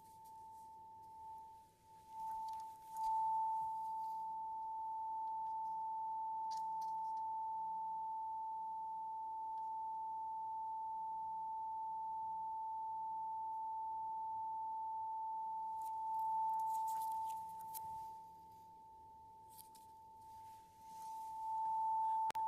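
Steady 885 Hz pure tone from a function-generator-driven loudspeaker sounding into a perspex resonance tube. It is faint at first, grows louder about three seconds in, fades again a few seconds before the end and then comes back, its level changing as the person at the tube moves. Faint rustling from handling the apparatus comes and goes.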